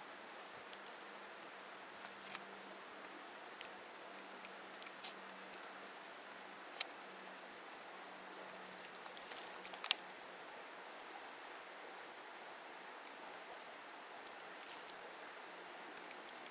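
Quiet outdoor background hiss with scattered light ticks and crackles, a small cluster of them a little past the middle.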